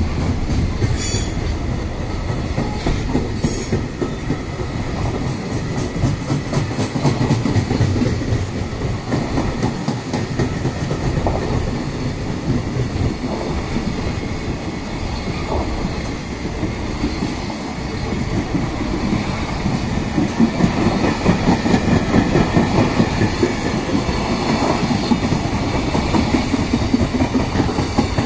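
Koki container flat wagons of a freight train rolling past close by. Their wheels clatter over the rail joints in a steady, rhythmic rumble that grows a little louder in the last third.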